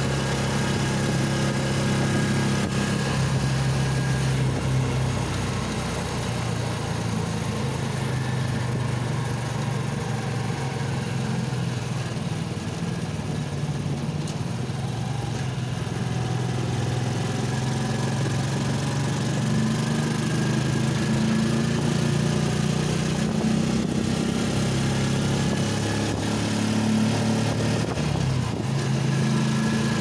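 A vehicle's engine running steadily while it drives along, heard from inside the passenger cab. Its pitch rises and falls a little as the speed changes.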